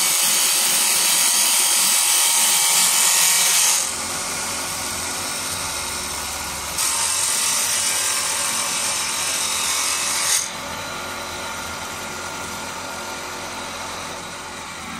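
Automatic wood lathe cutting a spinning wooden pestle blank, the cutter making a loud hissing rasp as it shaves the wood. The cutting stops about four seconds in, starts again around seven seconds, and stops once more just after ten seconds, leaving the machine running more quietly.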